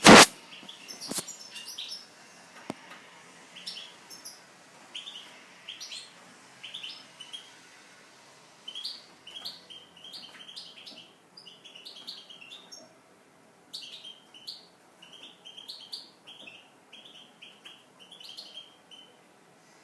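Eurasian siskin chirping and twittering in short high phrases, coming in quicker runs in the second half. A sharp knock at the very start is the loudest sound, with a fainter one about a second later.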